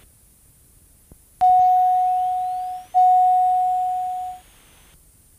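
An electronic cockpit chime heard through the headset intercom: one clear tone sounding twice, about a second and a half apart, each ringing and fading, with a faint rising whistle after the first.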